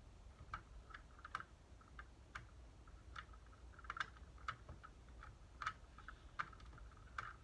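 Faint, irregular small clicks and ticks of a hand screwdriver turning screws out of a plastic Nerf gun's shell.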